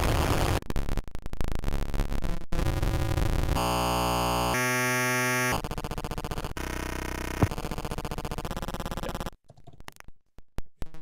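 Computer-generated electronic sound from an algorithmic synthesis program: a dense noisy texture, then a sequence of buzzing pitched tones that change about once a second, cutting off about nine seconds in.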